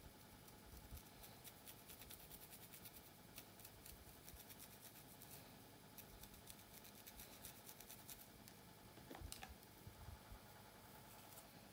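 Faint fingernail scratching and picking along a hair parting on a dry, flaky scalp: a quick run of tiny scratchy ticks, with a louder scrape a little after nine seconds.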